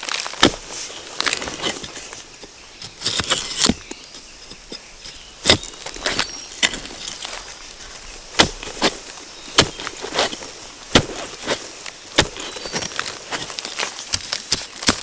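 Irregular sharp knocks and cracks, about one or two a second, with a longer rustle or crunch about three seconds in: hands and tools at work harvesting bamboo shoots.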